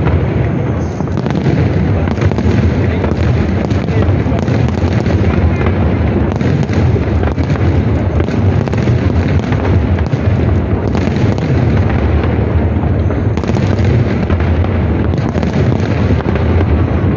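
Aerial fireworks display: a continuous barrage of overlapping bangs from many shells bursting at once, loud and without a pause.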